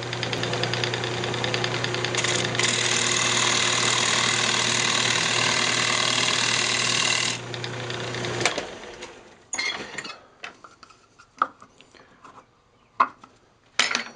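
Wood lathe running with a gouge cutting into the spinning maple blank, a loud steady hiss of cutting over the motor hum. The cutting stops about seven seconds in and the lathe shuts off a second later, followed by scattered knocks and clicks of the tool rest and tools being handled.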